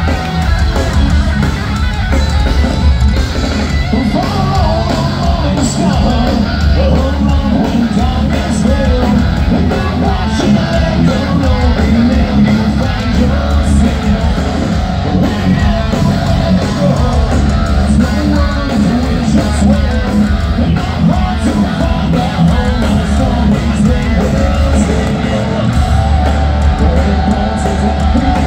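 A live hard rock band plays loud and steady: distorted electric guitars, bass and drum kit with a singer's voice over them, heard from within the crowd.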